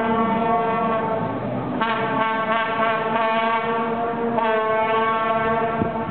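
Music of held, sustained chords that shift to new notes about two seconds in and again about four and a half seconds in.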